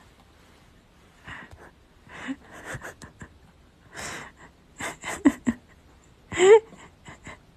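Grey cat giving a run of short, breathy, hoarse cries with its mouth wide open; the loudest, near the end, rises and then falls in pitch.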